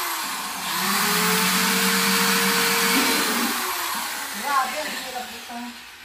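Corded electric drill drilling holes in a plastic plant pot: the motor slows to a stop at the start, spins up again about a second in, runs steadily, and winds down about three seconds in. A few short, higher-pitched sounds follow as it falls quiet.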